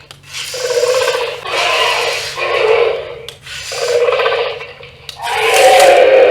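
Electronic roar sound effects from a toy remote-control velociraptor's built-in speaker: a run of about five calls, each about a second long.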